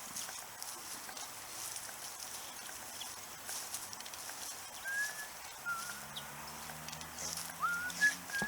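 Rustling footsteps through grass and scrub. In the second half come a few short, high-pitched calls, some rising in pitch, over a faint low steady drone.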